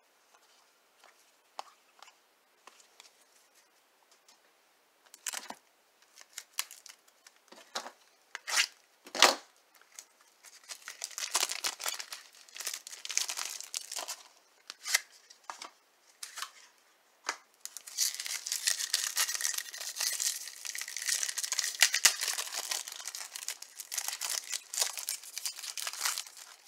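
Plastic wrapper on a 1994 Flair baseball card pack crinkling and tearing as it is peeled open. It is preceded by light clicks and snaps of cards and the pack being handled. The crinkling starts about eleven seconds in and is loudest and most continuous over the last eight seconds.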